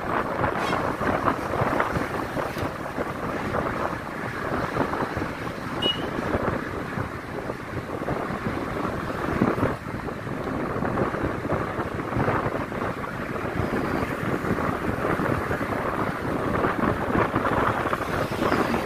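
Wind rushing and buffeting over the microphone of a camera riding on a moving vehicle, mixed with road noise, a dense unsteady rush that rises and falls.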